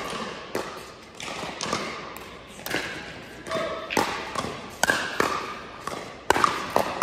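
Pickleball paddles hitting a plastic ball back and forth in a rally: sharp pops about once a second, each with a short echo.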